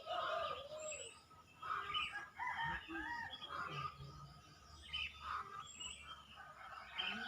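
Morning birdsong, many birds chirping over one another, with a rooster crowing in the first second.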